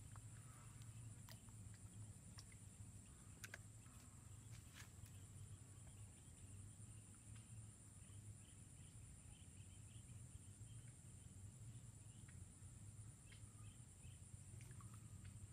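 Near silence: faint pond-side ambience with a steady high-pitched insect drone, a low hum, scattered faint chirps and a few soft ticks.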